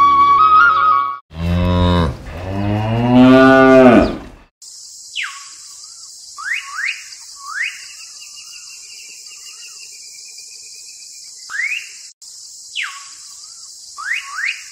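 Flute music breaks off about a second in, and a cow moos once, a long low call about three seconds long whose pitch rises and then falls; it is the loudest sound here. After it comes a steady high hiss with short whistled chirps that sweep up or down every second or so.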